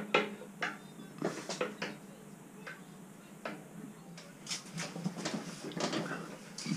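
Light, irregular metal clicks and taps from steel parts of a milling machine's knee-elevation shaft being handled and turned by hand, a cluster near the start and another about two thirds through.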